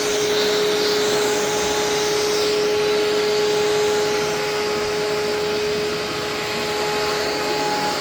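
Amway ClearTrak bagless cyclonic upright vacuum running steadily over carpet: a constant motor tone under rushing airflow, the hiss shifting a little as the machine is pushed.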